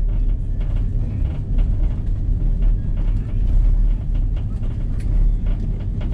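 Airbus A330 cabin noise just after landing: a steady low rumble of the airliner rolling on the ground, with scattered light clicks and rattles.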